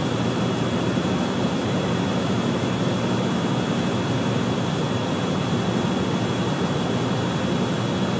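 Steady hiss and hum with a constant high-pitched whine running through it, unchanging throughout.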